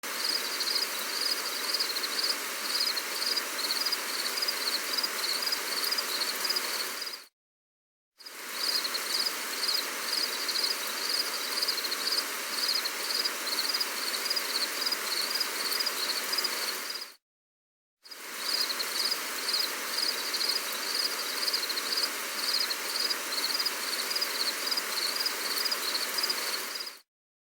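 Gentle rain as a steady hiss, with insects chirping in a fast, even pulsing rhythm above it. The sound cuts out to silence twice for about a second, resumes each time, and stops again shortly before the end.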